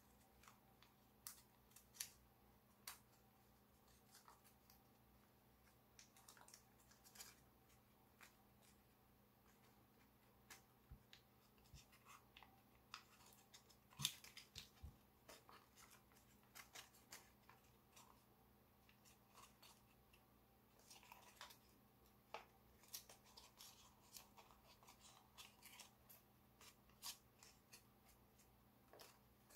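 Faint, irregular crinkling and crisp clicks of foil origami paper being creased and pressed by hand, with the sharpest crackle about halfway through.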